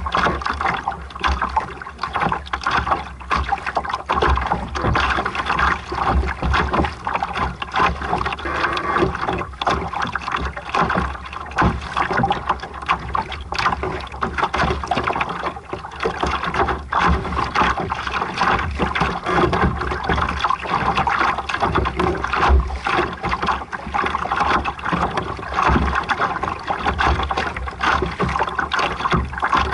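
Water rushing and splashing along the hull of a sailboat under way, with a steady low rumble beneath.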